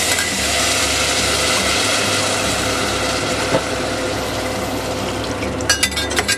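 Water poured into a hot pressure cooker of chana dal, hissing and bubbling steadily in the hot pan over a low hum. Near the end come a few quick clinks of a metal ladle against the pot.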